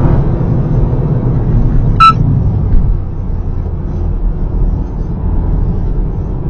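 Toyota GR Yaris driving under load, heard from inside the cabin: a steady low engine and road rumble. About two seconds in comes a single sharp knock with a brief ringing ping.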